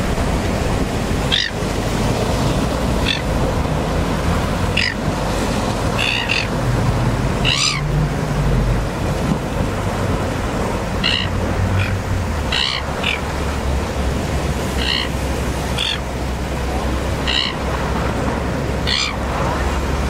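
Red-billed gulls calling, short high cries every second or two, over the steady wash of surf breaking on rocks.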